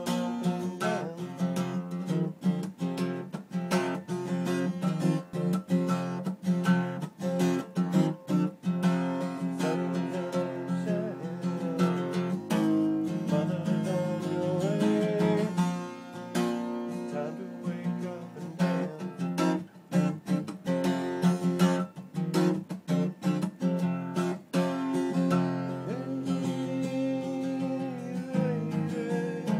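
Acoustic guitar strummed steadily, playing a song.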